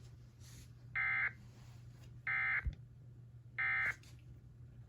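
Emergency Alert System end-of-message code: three identical short bursts of buzzy SAME data tones, each about a third of a second long and spaced about a second and a third apart, marking the end of the alert.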